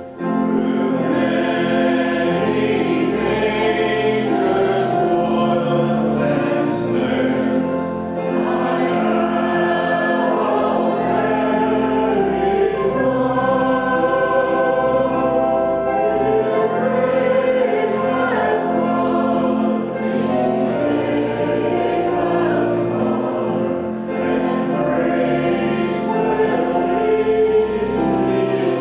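Congregation singing a hymn together, with a steady organ accompaniment underneath.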